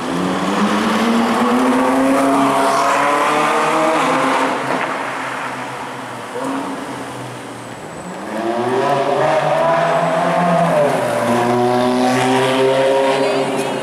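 Two Ferrari V8 engines accelerating away one after the other, each rising in pitch. A 458 Italia pulls away first, then after a short lull an F430 Spider revs up, its pitch dipping once partway through before it climbs again.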